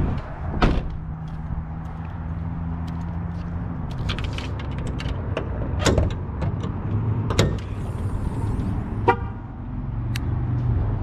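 Camaro SS V8 idling with a steady low hum. Sharp clicks and knocks come about half a second in, and again around six, seven and a half and nine seconds in, as the car is handled to get at the air intake.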